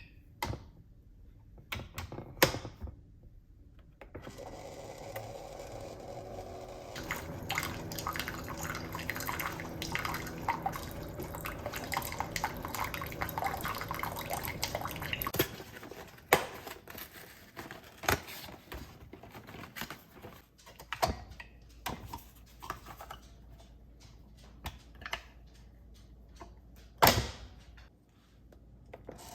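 Water running from a tap for about ten seconds, with clicks and knocks of items being handled before and after it.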